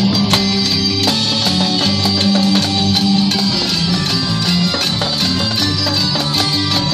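Loud music: marching snare drums played over a backing track with a moving bass line.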